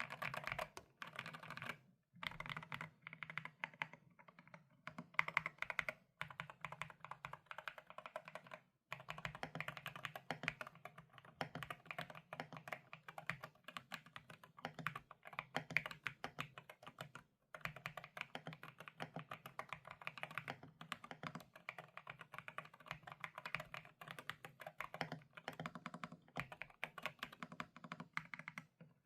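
Continuous fast typing on a GMK67 mechanical keyboard fitted with Akko V3 Pro Cream Blue tactile switches: a dense run of key clacks, with short pauses about two, nine and seventeen seconds in.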